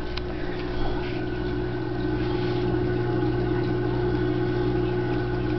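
AquaClear 802 powerhead running at full flow, a steady electric hum.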